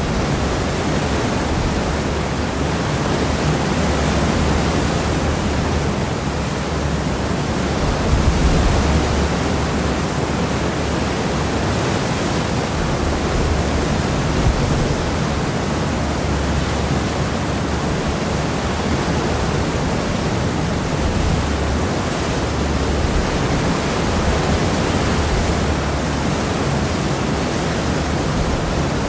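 Seawash churning in the wake behind a cross-channel ferry, heard from the stern: a steady rushing of water with a deep rumble underneath, swelling briefly about eight seconds in.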